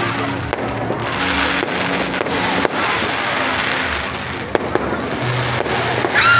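Aerial fireworks going off: continuous crackling with several sharp bangs of bursting shells, over music with a steady bass line. A loud, high held tone comes in near the end and drops away.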